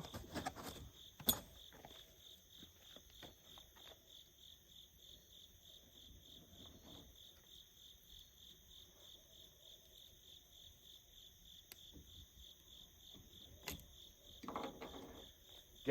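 Crickets chirping in a steady, fast, even pulse, with a few sharp handling clicks and knocks in the first second and a half.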